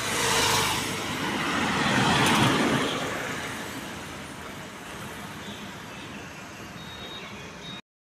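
A motor vehicle passing close by on the road, its noise swelling over the first three seconds and then fading into steady street traffic noise. The sound cuts off suddenly near the end.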